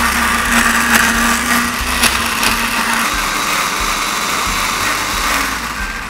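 Countertop electric blender running steadily, churning a thick avocado and cocoa mixture, then stopping near the end.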